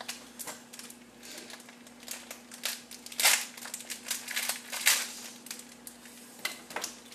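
Irregular crackling and clicking, with a couple of sharper snaps near the middle, over a faint steady hum.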